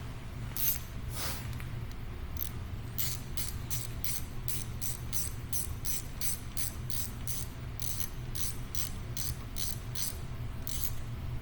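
Hand ratchet clicking in a steady run of short strokes, about three clicks a second, as a bolt is turned in.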